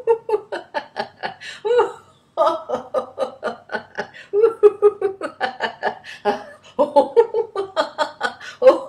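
A woman's deliberate laughter-yoga laughter, as if being tickled: fast runs of pitched ha-ha pulses, about five or six a second, with a short break for breath about two seconds in.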